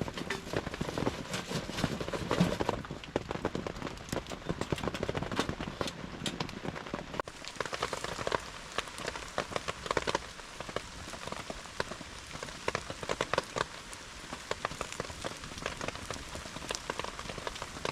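Heavy rain falling, a steady hiss full of separate drop hits; the sound changes abruptly a little over seven seconds in.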